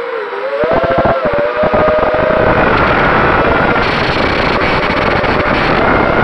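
QAV210 racing quadcopter's four Cobra 2205 2300 KV brushless motors whining as they spin DalProp 5040 three-blade props, heard from the onboard camera; the pitch dips just after the start, climbs again about a second in and shifts with the throttle. Rough buffeting noise runs underneath.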